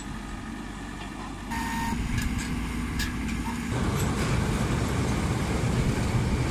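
Diesel engine of a combine harvester or its transport truck running with a low, steady rumble, louder from about a second and a half in, with a few sharp clicks.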